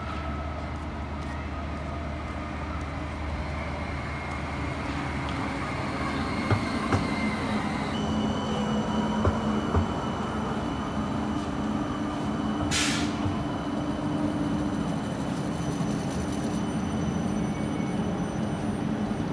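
CAF Urbos 100 light-rail tram pulling into a stop, its electric drive whining and falling in pitch as it slows, over a steady rolling rumble. A few clunks come in the middle, and a short hiss about 13 seconds in.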